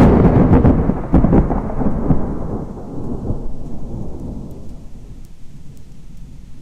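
Thunder from a close lightning strike, crackling for the first second or so and then rolling away in a low rumble that fades over several seconds.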